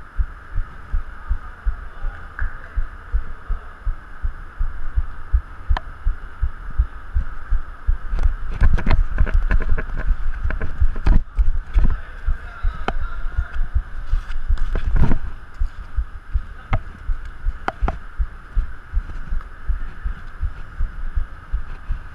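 Footsteps of the player wearing the camera, picked up as regular low thuds, about two a second, on an artificial-turf pitch. In the middle they quicken and grow louder with sharp knocks as he runs, and a few single knocks follow later.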